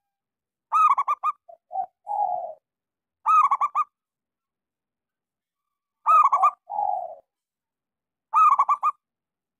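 Local zebra dove (perkutut) singing: four short phrases of quick, clipped cooing notes, one every two to three seconds. After the first and third phrases comes a lower, rolling coo.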